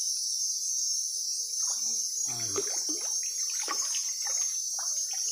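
Steady high insect chorus with irregular splashing of water from about two seconds in, as a hooked baung catfish struggles at the surface.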